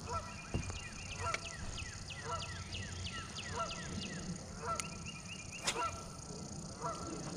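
Geese honking, a quick series of short calls repeated over and over.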